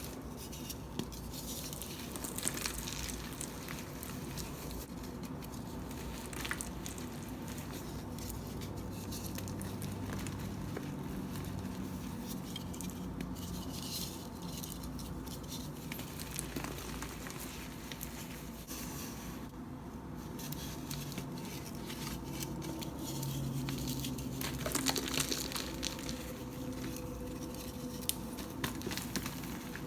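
Blocks of gym chalk crunched and crumbled by hand, a dense run of small cracks, crackles and soft crumbling patter, with a few sharper snaps near the middle and again near the end.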